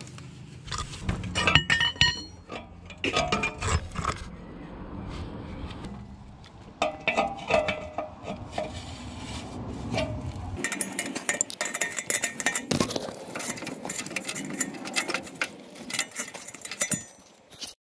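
Hand tools clinking and knocking against a car's steel exhaust pipe and clamps: an irregular run of sharp metallic clicks and clanks.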